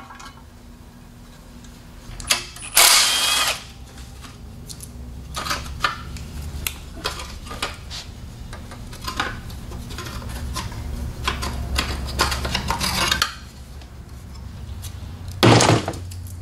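A cordless power tool runs in two short bursts on an engine block, with sharp clinks of metal tools and parts between them.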